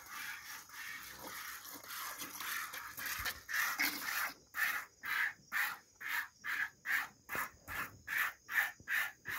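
Hand milking a cow: jets of milk squirting into a pail in a steady rhythm of about two and a half squirts a second, most distinct in the second half.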